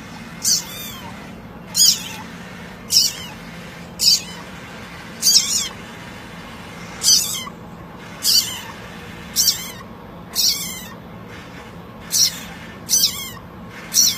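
A small animal's short, very high-pitched squeaky calls, about a dozen of them, repeated roughly once a second over a steady low background hum.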